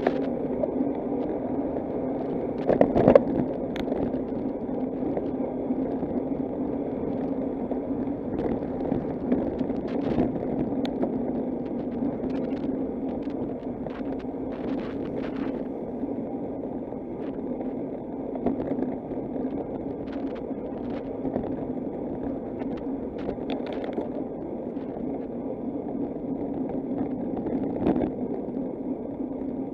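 Bicycle riding along a road: steady rolling rumble of the tyres with frequent small rattles and clicks, and a louder knock about three seconds in.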